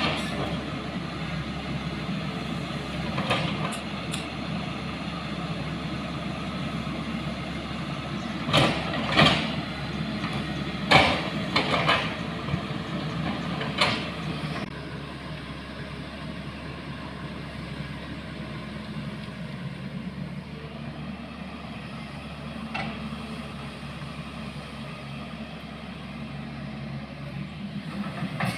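A motor vehicle engine running steadily, with several sharp knocks or jolts in the first half and one fainter one later.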